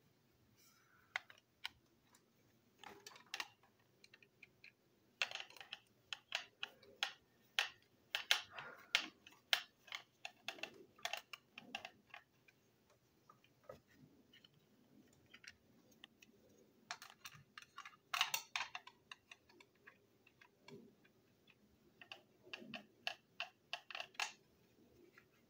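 Faint, irregular clusters of light clicks and rattles from small plastic toy-engine parts and a screwdriver being handled while the toy is taken apart.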